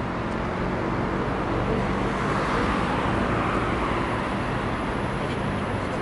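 Steady road traffic noise, swelling a little in the middle as a vehicle goes by.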